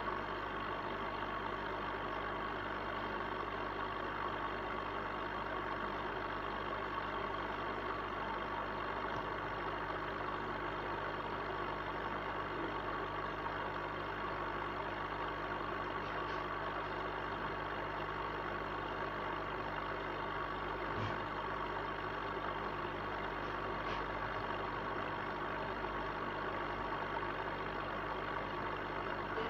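Steady hum of running aquarium equipment: an even hiss with a thin, constant whine that does not change.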